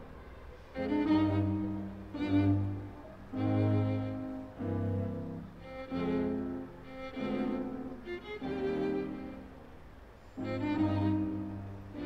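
Slow string music on violin and cello, held bowed notes with a new note or phrase every second or so over a low bass line.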